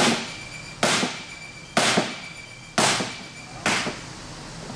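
Five hammer blows, about one a second, on a dented aluminum car fender backed by a sledgehammer held as a dolly, each strike ringing briefly in the sheet metal. The blows are driving the dents and creases back out of the annealed aluminum panel.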